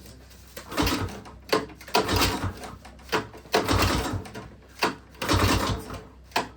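Recoil pull-starter of a 1951 Moto-Ski snowmobile's Kohler 295 engine yanked about four times on choke, each pull a short rasping whir as the engine turns over without firing.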